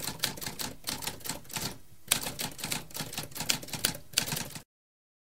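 Typewriter keys clattering in a rapid, uneven run of clicks, with a short pause about two seconds in, cutting off suddenly about a second before the end.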